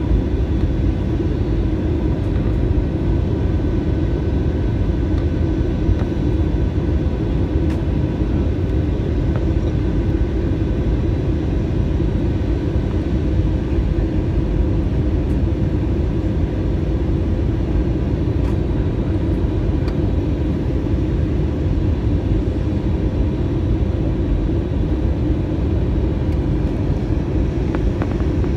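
Airliner cabin noise during the descent: a steady low rumble of engines and airflow, with a few faint steady tones above it.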